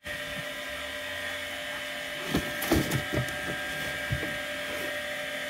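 Cardboard box handled by hand, giving a cluster of light knocks and scrapes about two to three seconds in and one more near the end, over a steady background hum.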